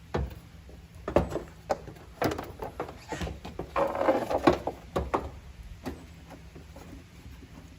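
Hands working plastic car trim parts: a series of clicks and knocks, with a scraping rustle about four seconds in.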